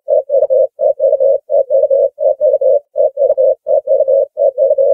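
Ring-necked dove cooing: short coos on one steady pitch in quick threes, the triplets repeating about every three quarters of a second, starting abruptly.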